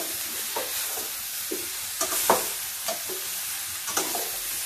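Eggplant pieces sizzling in oil and spices in a steel kadhai while a steel spoon stirs them, scraping and clinking against the pan in irregular strokes under the steady sizzle; the loudest clink comes a little past the middle.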